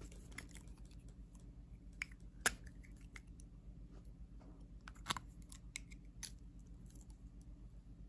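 A handful of sharp clicks and taps from small objects being handled, irregularly spaced and loudest about two and a half and five seconds in, over a steady low hum.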